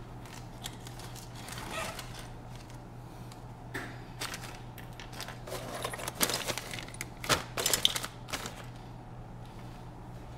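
Rummaging for a cable: irregular clicks, rattles and clatters of small hard objects being moved about, busiest and loudest from about six to eight and a half seconds in, over a steady low hum.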